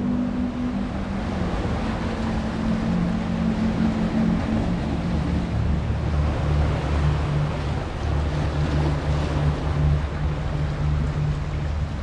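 Ocean surf washing in over and around shoreline rocks, a steady rush of water. Underneath it runs a low droning hum that steps down in pitch a few times.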